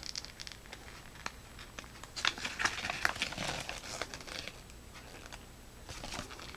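Paper warranty card and printed inserts being handled, rustling and crinkling with scattered light taps, busiest around the middle.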